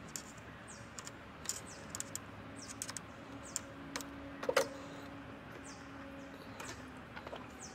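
Faint, scattered light clicks and taps from hands handling parts in a car's engine bay, the sharpest about four and a half seconds in, with short high falling bird chirps repeating in the background.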